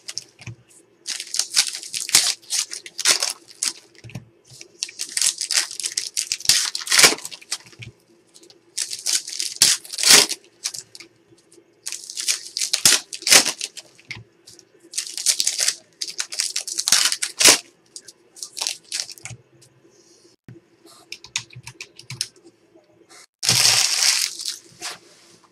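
Baseball card pack wrappers being torn open and crinkled by hand, one pack after another in short bursts of ripping, with a faint steady hum underneath.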